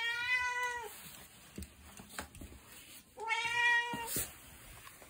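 Tabby house cat meowing twice: two long, steady meows about three seconds apart. It is a hungry cat asking for food.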